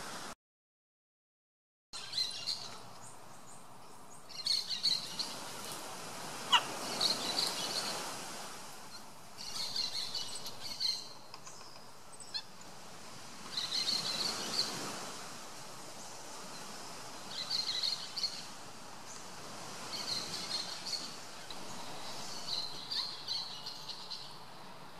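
Chirping animal calls in short high clusters every couple of seconds, with a single whistled call falling in pitch about six and a half seconds in, over a steady outdoor hiss. The sound drops out completely for a second and a half just after the start.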